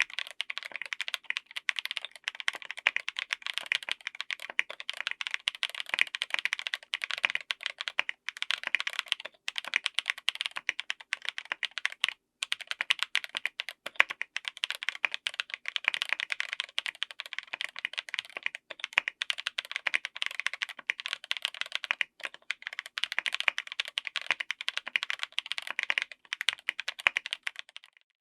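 Mechanical keyboard with stock Epomaker Bluebird linear switches in an FR4 plate, typed on quickly and continuously: a dense stream of key strokes with a few short pauses.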